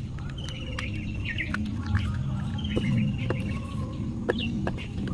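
Small birds chirping and trilling over and over, mixed with scattered light clicks of a screwdriver working a screw out of a plastic-bodied contactor, over a steady low hum.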